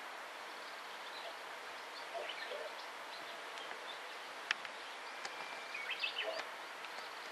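Quiet rural outdoor ambience: a steady background hiss with a few faint, short bird calls and a single sharp click about four and a half seconds in.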